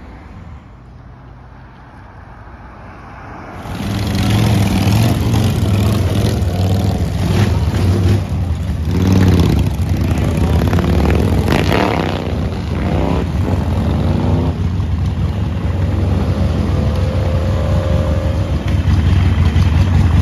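Harley-Davidson V-twin motorcycles: a quiet stretch, then from about three and a half seconds in a loud steady engine rumble close by. Around the middle, several bikes rev and pull away, their pitch rising and falling as they go.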